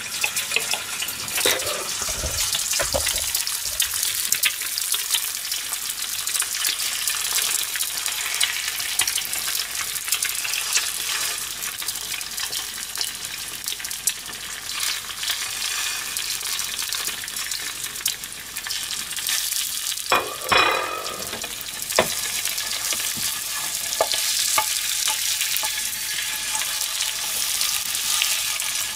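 An egg and a sandwich frying in a frying pan, a steady sizzle. Scattered light clicks of utensils, with one louder knock about twenty seconds in.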